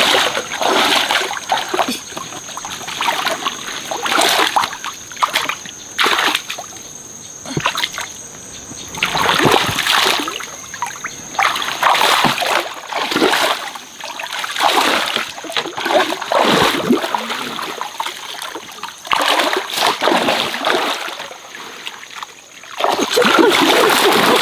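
Water splashing in irregular bursts, several loud splashes with quieter gaps between. A steady high-pitched tone runs underneath and stops near the end.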